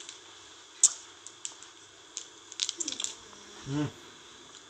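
Light clicks and taps: one sharp click near the start and a quick run of small clicks about two and a half seconds in, followed by a short low 'mm' from a woman's voice.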